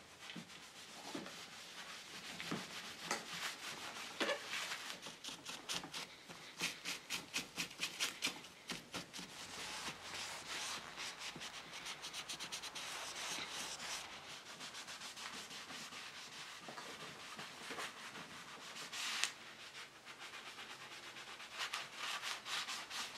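A 0000 steel wool pad rubbing paste wax into the finish of a carved wooden chair frame, with scratchy back-and-forth strokes that come in quick runs of about three a second in the middle.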